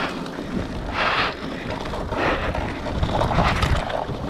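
Hardtail mountain bike riding down a dirt trail: tyres rolling over the ground with a low rumble that grows heavier in the second half, many small rattling clicks, and a few short hissing surges of noise.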